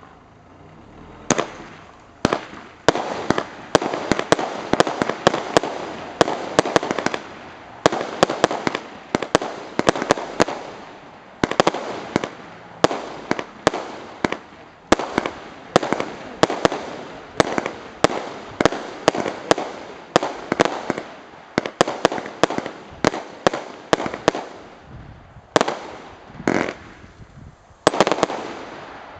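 A 49-shot consumer firework cake, Star Comet's 'Bandidos' (Art. 670), firing its shots in quick succession: sharp bangs about two or three a second, starting a second or so in. The firing thins to a few spaced bangs near the end.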